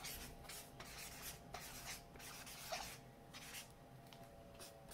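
Fat-tipped marker scratching across black paper, a quick run of short and longer strokes as a tag is written. Faint.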